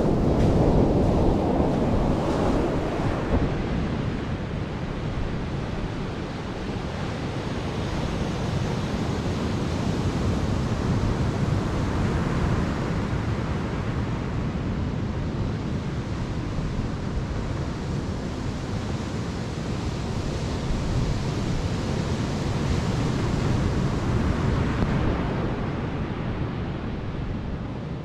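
Atlantic surf breaking and washing up a sandy beach, a continuous rush of waves with wind buffeting the microphone. The wash is loudest in the first few seconds, then settles into a steadier sound of breakers that swells and eases a little.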